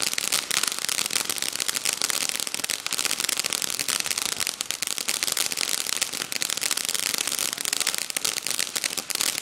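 A ground firework spraying sparks with a dense, continuous crackle of tiny pops over a hiss. It keeps going without a break.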